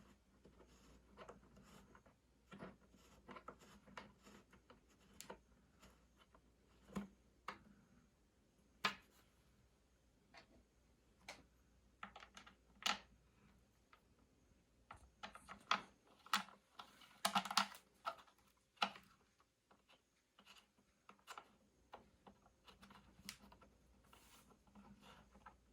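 Scattered light clicks and taps at irregular intervals from a small hex key and screws being worked on a small wooden speaker case, with a denser run of quick clicks about two-thirds of the way through.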